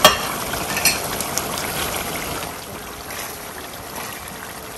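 Rohu fish head pieces sizzling as they fry in oil and spice paste in a stainless steel pan, with a few sharp clicks of a spatula against the pan in the first second or so. The sizzle then settles into a steady, softer hiss.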